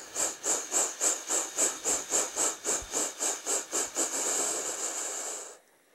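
Steam locomotive chuffing at about four puffs a second, the puffs running together into a continuous hiss of steam before cutting off suddenly near the end.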